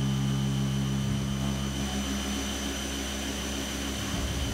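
Fadal CNC vertical mill with its spindle running and an end mill machining an aluminum part under flood coolant. There is a steady machine hum with thin high tones over a constant coolant spray hiss. The low hum shifts about a second in and again near the end as the cut changes.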